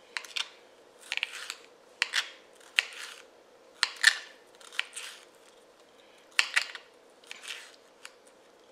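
Kitchen knife cutting peeled raw potatoes into chunks on a cutting board: a series of crisp, irregular cuts, one or two a second, each ending in a light knock of the blade on the board.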